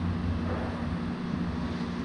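Air conditioning running in a hall: a steady low hum with an even hiss.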